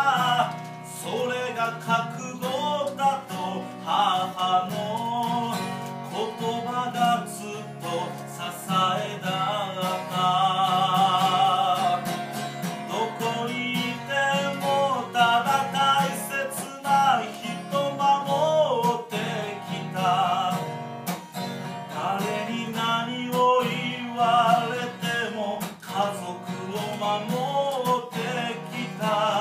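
Live acoustic guitar strummed steadily as an instrumental passage, with a wavering melody line held over it.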